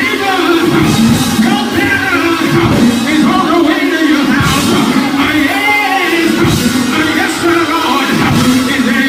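Loud live church band music with singing and shouted vocals over it.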